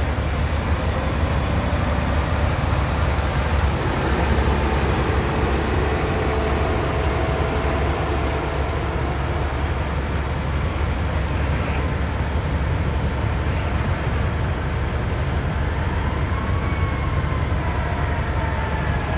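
A steady, loud low rumble from a burning semi truck and van being hosed down. Near the end an emergency siren starts to wail, rising and then falling.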